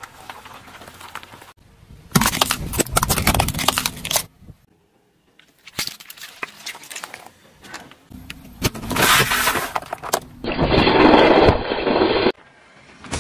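A car tyre rolling over and crushing small rubber and plastic toys on asphalt, in several short clips: loud bursts of cracking and crunching separated by quieter gaps, the longest burst near the end.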